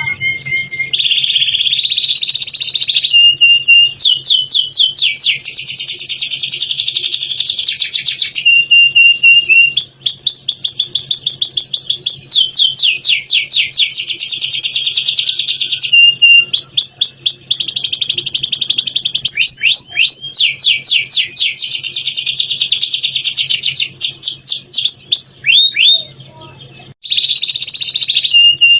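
Domestic canary singing continuously in long, rapid rolling trills, broken by short steady whistled notes. The song breaks off briefly near the end, then resumes.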